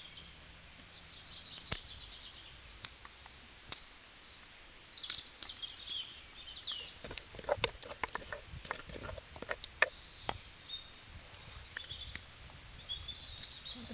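Birds chirping in the background, with many irregular sharp clicks and knocks from close handling work, bunched most thickly in the middle.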